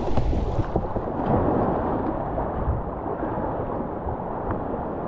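Rushing whitewater of river rapids heard from a kayak, a steady loud churning with a few sharper splashes.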